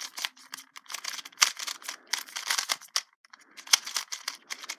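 Brand-new GAN 251M 2x2 speedcube being turned quickly by hand: rapid plastic clicking in bursts, with a short break about three seconds in. The turning is very fast.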